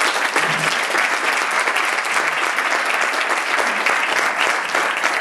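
An audience clapping together in sustained applause.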